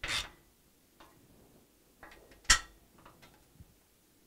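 Box-end wrench tightening a steel nut on a steel rack frame: a short scrape as the wrench turns at the start, faint ticks, then one sharp metal clink about two and a half seconds in.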